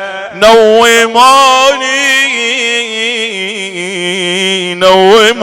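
A man chanting an Iraqi Shia lament in Arabic, drawing out long, wavering melismatic notes on one line of the elegy.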